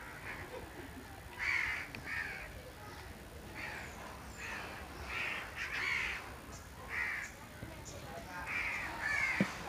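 Crows cawing over and over, short harsh calls coming about once a second.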